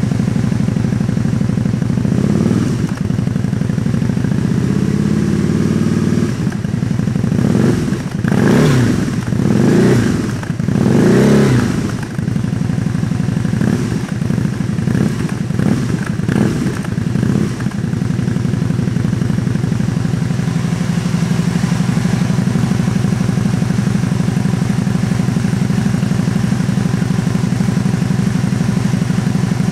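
Aprilia Futura's V-twin running through BEF slip-on exhaust cans: idling, then revved up several times in the first twelve seconds or so, followed by a string of short quick throttle blips, before settling back to a steady idle.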